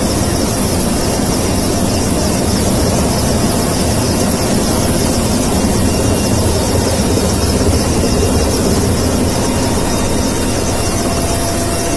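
Military rescue helicopter's turbine engines and rotor running steadily in a hover, heard from the open cabin door: dense rotor noise with a steady high whine over it.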